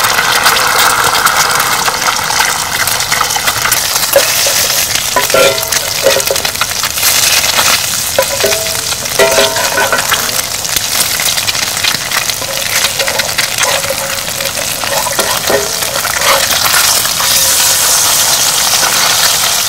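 Duck and quail eggs sizzling steadily in a cast-iron skillet, with a metal spatula scraping and clinking against the pan a few times as the eggs are turned.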